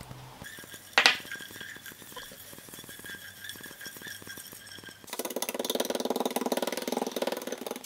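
A single sharp clink about a second in, then from about five seconds in a silicone spatula stirring sugar and water in a small nonstick saucepan, a dense, finely rhythmic scraping.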